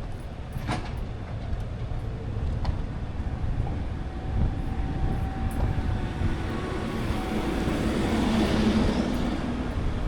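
Kia Sportage driving along a road: a steady low rumble of tyres and engine, with a couple of faint clicks early and a swell of louder hiss about eight seconds in.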